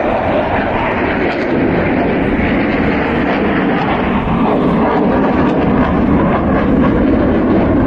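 Aircraft flying in an air-show display, heard from the crowd line as steady, loud engine noise.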